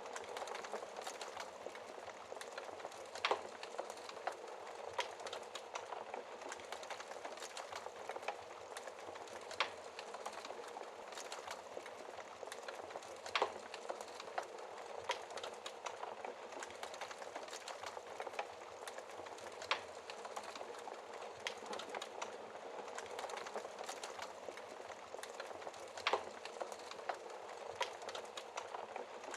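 Wood fire crackling in a fireplace: a steady soft hiss with irregular small crackles throughout and a handful of louder pops.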